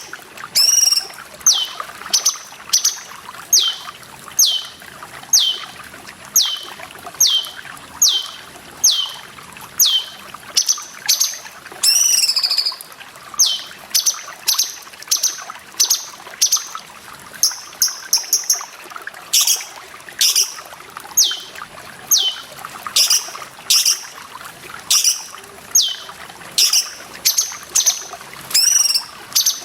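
Cucak cungkok song: a run of sharp, falling whistled notes repeated about once a second, with a fuller call twice, over a steady trickle of running water.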